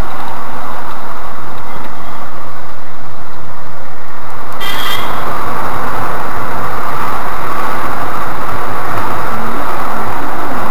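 Loud, steady in-car driving noise of a Škoda Rapid 1.6 MPI: engine and tyre noise picked up by a windscreen dash camera. A brief click comes about four and a half seconds in.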